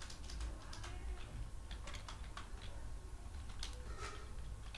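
Typing on a computer keyboard: irregular key clicks at an uneven pace, over a low steady hum.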